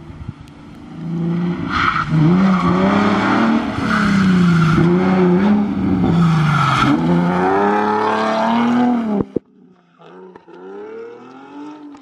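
Car engine revving hard as it drifts past, its pitch swinging up and down with the throttle, over tire noise on the road. About nine seconds in it drops away suddenly to a much fainter engine.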